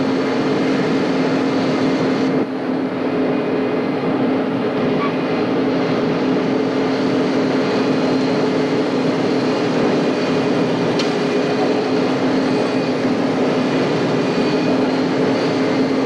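John Deere 8820 combine running steadily while harvesting soybeans, heard from inside the cab: an even, unbroken drone of the diesel engine and the threshing machinery.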